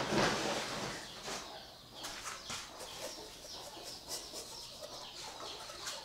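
Chickens clucking, loudest in the first second, then scattered short calls.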